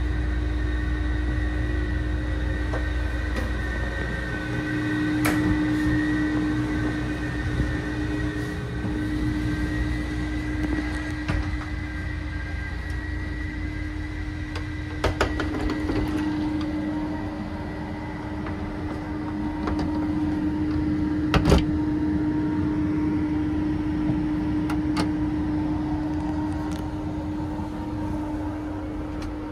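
Steady mechanical hum inside a sleeper-train carriage, with a low rumble that eases a few seconds in. A few sharp clicks and knocks come through, the loudest about two-thirds of the way through.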